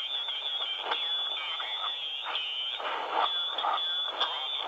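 Shortwave receiver tuned to 7.267 MHz in the 40-metre amateur band, playing weak, garbled single-sideband voice through repeated static crackles, with a steady high-pitched tone.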